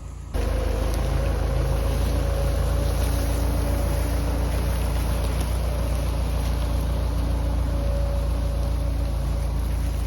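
A vehicle engine running steadily, a low rumble that starts suddenly just after the start.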